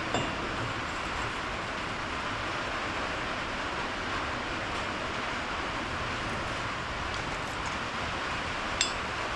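Two brief metallic clinks, one just after the start and a louder one near the end, over a steady hiss.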